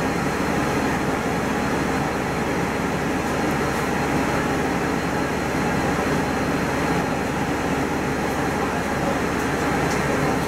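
Steady engine, road and ventilation noise heard from inside a moving bus, with a thin steady high tone running through it.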